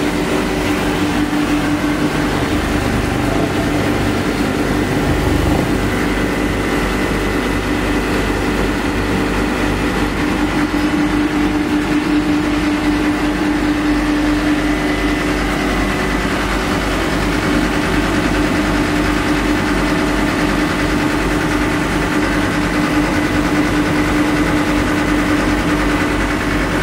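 Copper wire granulator machine running steadily: a loud, constant machine din with a strong hum and a thin high whine over it.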